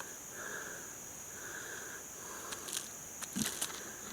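Steady high-pitched drone of insects, crickets or similar, in the background. Toward the end a few short clicks and a knock from handling stand out above it.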